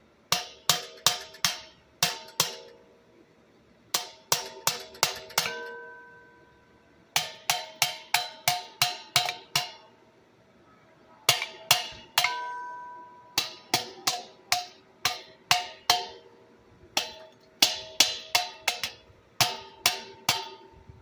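Hammer striking a metal part on an air compressor's motor, in quick runs of four to nine blows with short pauses between. Each blow rings briefly. The part is being knocked loose.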